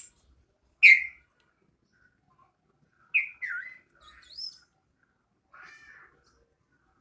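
A bulbul calling in short separate notes: a loud sharp chirp about a second in, two down-slurred notes around three seconds, a high whistle just after them, and a softer call near the end.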